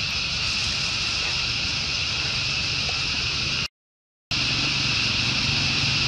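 Steady outdoor background: a continuous high-pitched hiss with a low rumble beneath it. It drops out to dead silence for about half a second a little past halfway.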